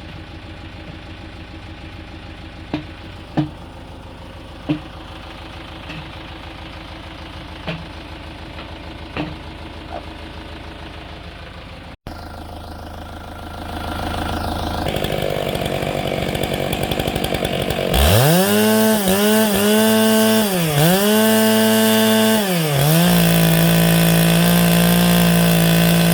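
Stihl 661 two-stroke chainsaw on a chainsaw mill running at full throttle from about two-thirds in, its pitch dipping and recovering repeatedly as the chain bites into the log. Before that, a low steady hum with a few sharp knocks.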